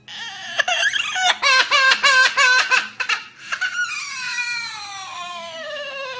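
Parrot mimicking a baby crying: a run of quick sobbing wails for about three seconds, then one long wail that slides steadily downward.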